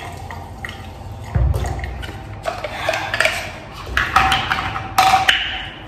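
A weak trickle of water from a bathroom sink tap with very low pressure, with splashing and knocks and clinks of things handled at the sink. There is a thump about a second and a half in and sharp clicks near the end.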